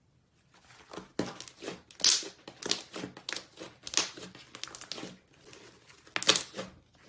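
Slime being squished and worked, making irregular crackling and popping clicks, loudest about two seconds in and again near the end.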